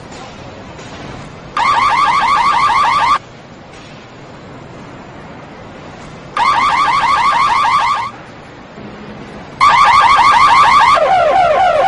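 Car alarm siren going off in three short bursts of a fast, repeating rising chirp, each about a second and a half long. Near the end it switches to a lower, slower warble.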